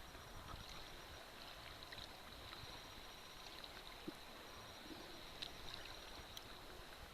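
Faint, steady wash of water, with a few small clicks.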